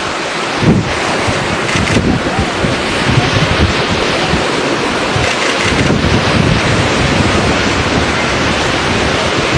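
Sea surf washing and breaking, a steady loud rush, with wind rumbling in gusts on the microphone.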